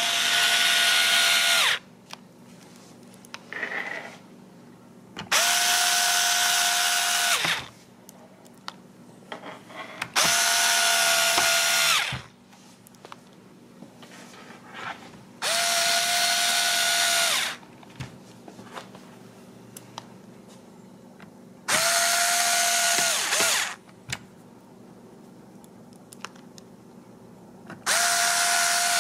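Small electric screwdriver driving screws into a bidet water heater's plastic housing. It makes six runs of about two seconds each, roughly five seconds apart, each a steady motor whine that spins up and winds down.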